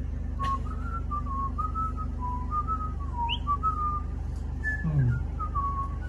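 A man whistling a slow, wandering tune: a single pure note stepping up and down, with short breaks between phrases.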